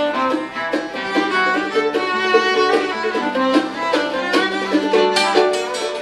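A fiddle playing a bluegrass-style tune over an archtop acoustic guitar strumming rhythm chords.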